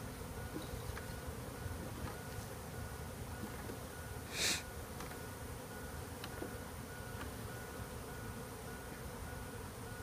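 Honey bees buzzing steadily around an open hive box crowded with bees. A short hiss cuts in once about four and a half seconds in.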